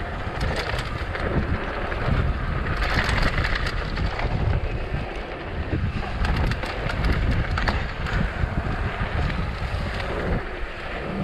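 A downhill mountain bike riding fast down a dirt trail. Wind buffets the microphone, the tyres rumble, and the bike clatters sharply and often over bumps.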